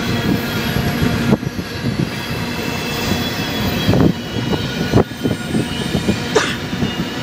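Freight train's cars rolling past: a steady rumble of steel wheels on the rails, with a few sharp clanks.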